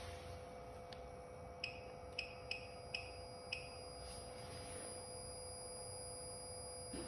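Five short electronic beeps in quick succession, typical of an oscilloscope's front-panel key or knob beep as its settings are changed. Under them is a faint steady hum and whine.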